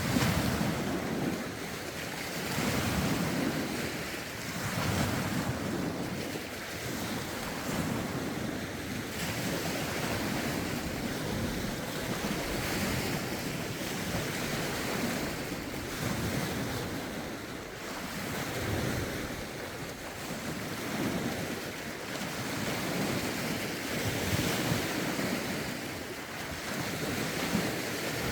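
Lake waves washing ashore in steady, repeated swells every few seconds, with rough wind buffeting the microphone.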